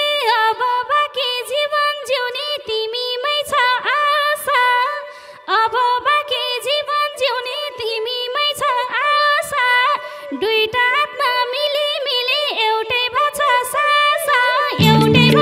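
Instrumental break of Nepali folk dohori music: a lead melody instrument plays a sliding, ornamented tune over light hand-drum strokes. It dips briefly about five seconds in, and the fuller band with deeper notes comes back in near the end.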